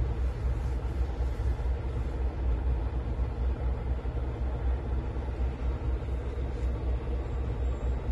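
Steady low rumble with a faint steady hum, of an idling diesel truck engine.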